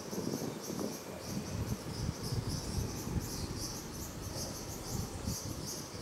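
Insects chirping in a steady rhythm, about three short high pulses a second, over a low rumbling noise.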